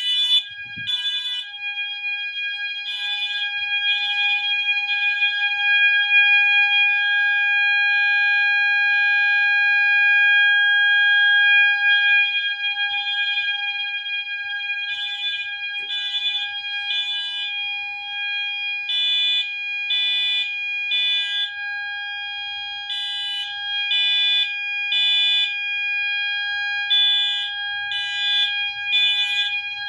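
Two fire alarm sounders going at once. A Wheelock MT multitone horn sounds the code 3 (temporal-3) evacuation pattern, three pulses about a second apart and then a pause, repeating. Under it a second alarm sounder, the MASS on its default 800 Hz setting, holds one steady tone.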